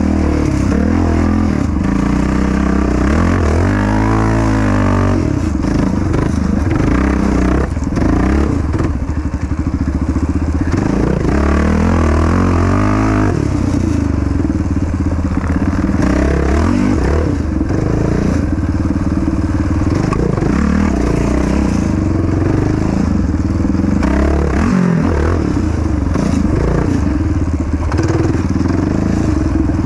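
Yamaha Raptor 700 quad's single-cylinder four-stroke engine running hard under race riding, its revs rising and falling over and over with throttle and gear changes.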